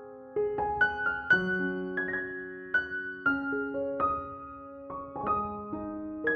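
Background music: a gentle piano melody, single notes and chords struck one after another and left to ring.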